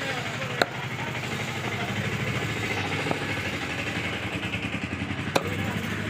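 Cleaver chopping quail on a wooden block: a sharp strike about half a second in, a fainter one midway, and another near the end, over the steady rumble of an engine running.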